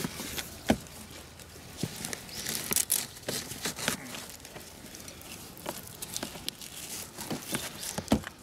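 Handling noises in a fabric folding wagon: rustling and crinkling of fabric and a plastic bag as a leash and straps are tied, with scattered clicks and knocks, the sharpest about a second in and near the end.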